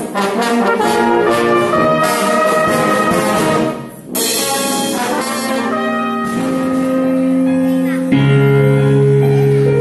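Small brass band of trombones, cornets and lower brass playing a piece. The music dips briefly about four seconds in. Most of the second half is long held chords, with a louder chord change near the end.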